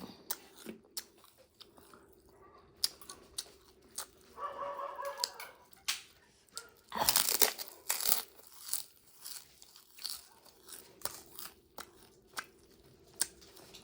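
A person eating close to the microphone: chewing and crunching food, with a longer noisy burst about seven seconds in.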